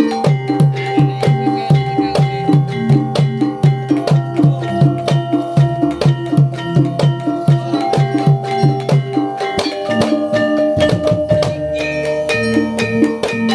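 Instrumental music with percussion and a steady, quick beat.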